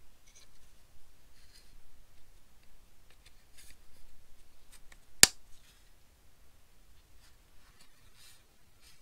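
Small plastic interior parts of a 1/18 scale diecast car being handled and fitted together by gloved hands: faint rustles and light scrapes, with one sharp click about five seconds in as a part snaps into place.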